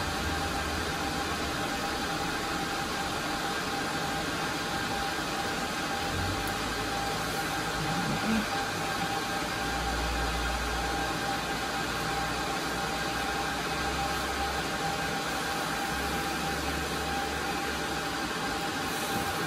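Steady whir of cooling fans from rack-mounted network switches and servers running, with a faint steady whine. A few low bumps from the fiber patch cables being handled and plugged in now and then.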